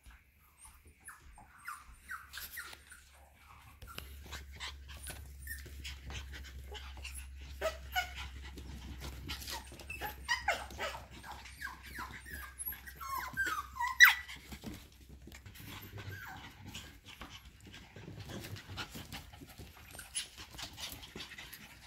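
F1B cockapoo puppy whimpering and giving short little yips, with one sharper yelp about two-thirds of the way through, while its claws click on a hardwood floor as it trots about.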